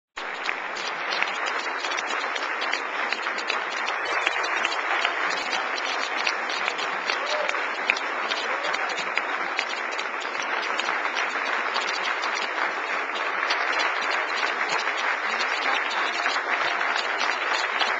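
A crowd applauding steadily, the clapping of many hands going on without a break.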